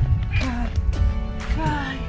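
Background music: held chords with a beat about twice a second, and a few sliding melodic notes over it.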